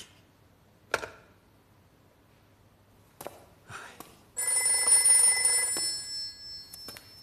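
Old-style telephone bell ringing. It starts suddenly about four seconds in, rings loud for about a second and a half, then dies away. A few light knocks come before it.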